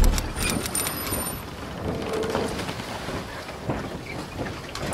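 Logo-intro sound effect: a deep boom hit at the start, with brief high sparkling tones over it, then a hissing, crackling wash like rain and distant thunder, with a short tone about two seconds in.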